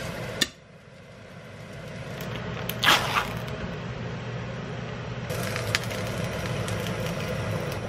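Fish fillets frying in a double-sided grill pan, sizzling and crackling, with a few sharp clinks of the pan lid and utensils, the loudest about three seconds in.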